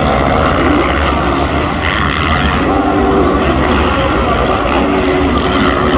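Several motocross race bikes' engines running hard on the track, revving up and down as riders pass.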